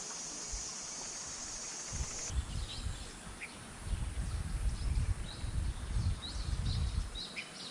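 Outdoor ambience by a stream: a steady high insect buzz that stops about two seconds in, then many short, high bird chirps. Gusty low buffeting on the microphone runs through the middle of it.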